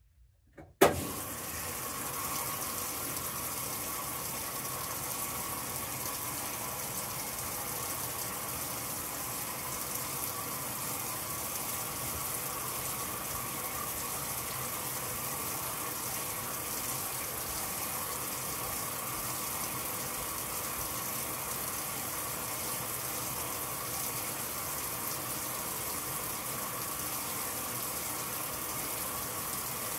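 1985 Whirlpool Supreme belt-drive top-load washer filling with water at the start of its soak cycle: a sharp click about a second in, then a steady rush of water pouring into the tub.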